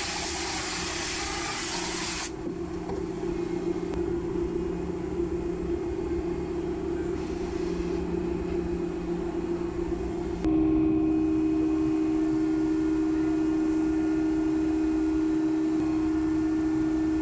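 Compressed air hissing loudly for about two seconds, then a steady machine hum inside the machining centre, which steps up louder about ten seconds in.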